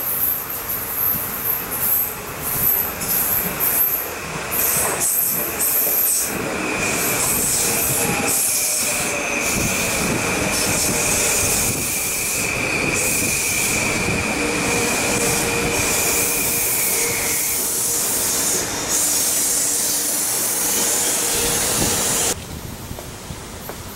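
Metro-North M8 electric multiple unit rolling into the station and slowing to a stop, with one long steady high-pitched squeal from the wheels and brakes that ends as the train halts.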